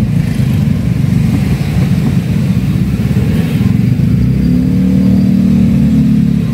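A car driving along a road, its engine running with steady low rumble and road noise. The engine note strengthens and shifts in pitch a little from about halfway through.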